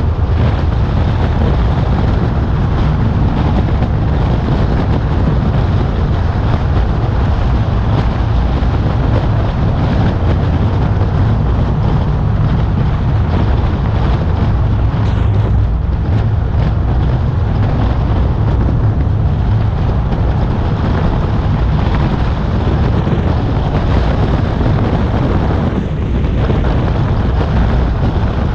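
Car driving at a steady speed: a steady low engine hum with road and wind noise, heard through a camera mounted on the outside of the bonnet.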